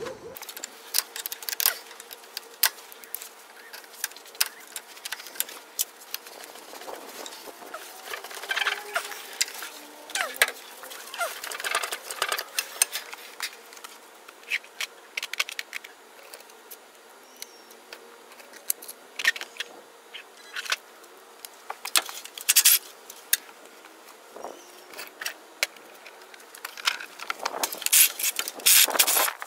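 Scattered metallic clicks and clinks of hand tools and engine parts being handled, irregular, with a louder clatter near the end.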